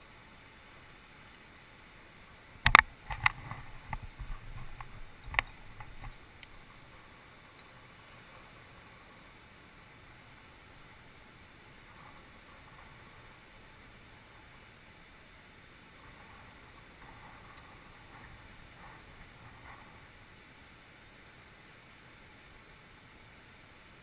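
A few sharp clicks and knocks close to the microphone, about three and five and a half seconds in, with low rumbling handling noise between them, over a steady faint hiss.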